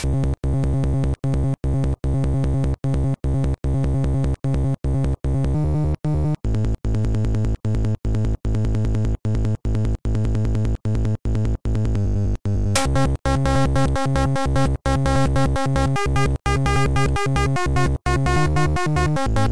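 Synthesized electronic music from an Amiga 4K intro: a steady bass chord chopped by short gaps in an even rhythm, about two and a half times a second. About thirteen seconds in, brighter upper tones come in and the sound gets fuller.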